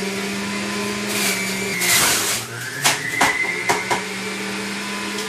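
Electric juicer running with a steady motor whine. About two seconds in, a loud shredding burst as a whole head of romaine lettuce is forced into it: the motor slows under the load, then winds back up. A few sharp knocks follow.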